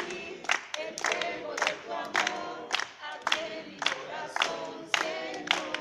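A small group singing a praise song together, with hands clapping in time about twice a second.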